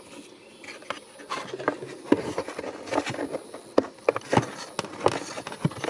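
Irregular plastic clicks and knocks as a turn-signal bulb socket is twisted into its lamp housing and the housing parts are handled, the loudest knock about four and a half seconds in.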